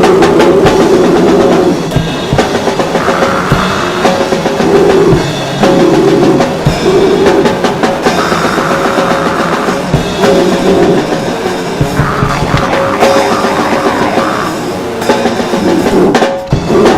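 Rock band playing, with the drum kit prominent: steady drum hits over sustained pitched instrument notes.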